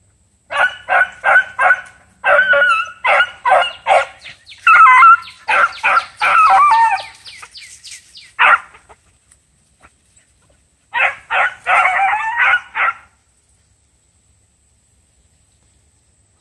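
Dog barking and yelping in quick runs of short, high calls, some drawn out and wavering in pitch. A long bout is followed by a pause and then a shorter bout.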